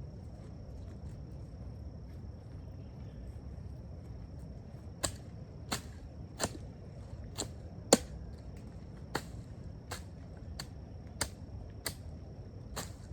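A hand tool striking vegetation or soil in a steady rhythm of sharp chops, about three every two seconds, starting about five seconds in. A cricket-like insect shrills steadily throughout.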